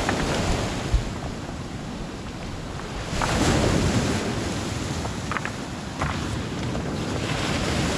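Small waves breaking and washing up over a pebble shingle beach, with wind buffeting the microphone; a bigger wave surges in about three seconds in.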